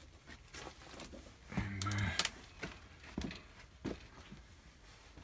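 Footsteps and scattered knocks on an old barn's wooden floor and debris, with a brief low-pitched sound about a second and a half in.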